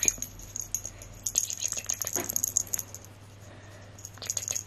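A small plush cat toy rattling and jingling in short bursts as it is shaken and a kitten bats and grabs at it, with a high, bell-like jingle through each burst.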